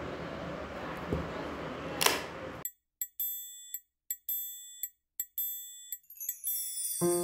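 Steady background rumble with one sharp knock about two seconds in; then the sound drops out abruptly, leaving a string of separate sharp clicks, each ringing briefly in a high tone. Light piano-like music starts near the end.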